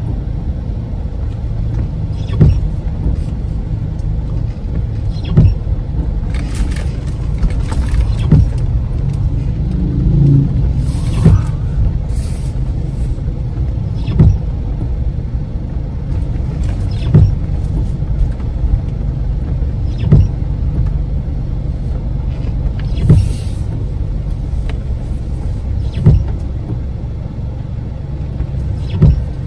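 Car driving on a rain-wet road at night: steady road and engine rumble, with a short knock about every three seconds from the windscreen wipers sweeping on a slow intermittent setting. Now and then a hiss of tyre spray rises and falls.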